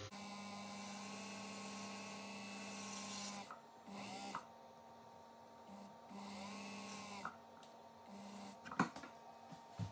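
Small watchmaker's lathe motor whirring as a graver turns down a thin watch bushing to size. The motor runs steadily for about three and a half seconds, then is stopped and restarted in several short runs, its pitch sliding at each start and stop, with a sharp click near the end.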